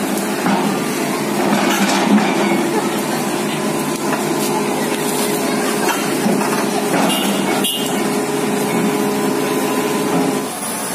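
Engine running with a steady drone, with scattered knocking and rattling over it.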